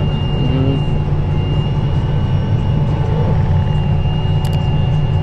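John Deere 8345R tractor running steadily under load while pulling a seed drill across the field, heard from inside the cab. The engine gives a constant low drone, and a thin high whine holds steady over it.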